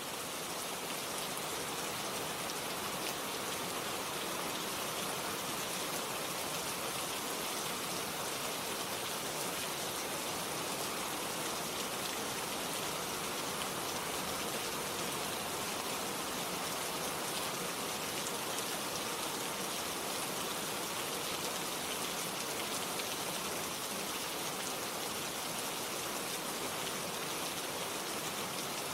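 Steady, even rain with a dense hiss of falling drops.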